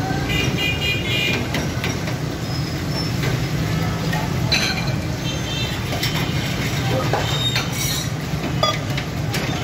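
Steady din of a busy street, a constant traffic rumble, with short metallic clinks of steel buckets and cups and faint voices.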